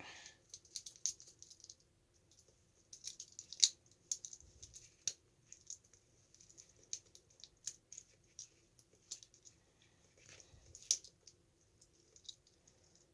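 Small plastic parts of a Kinder Joy toy tractor clicking and rattling as they are handled and fitted together, in irregular scattered clicks.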